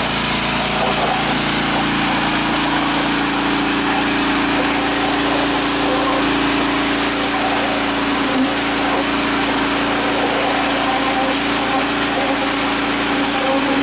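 Pressure washer running steadily, its small engine droning evenly under the hiss of the water jet blasting into soil.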